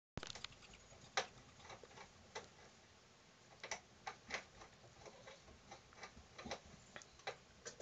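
Scattered faint clicks and taps at an irregular pace, the sharpest about a second in, from Gambian pouched rats shifting about against each other in a wire cage.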